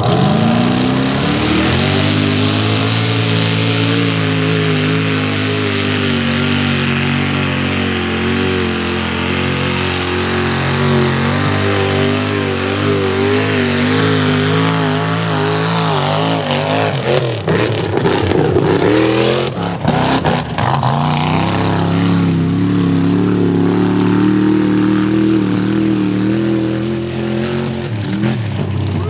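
Mud racing truck engine at full throttle: the revs climb at the start, hold high and steady, waver and drop about two-thirds of the way through, then climb and hold again.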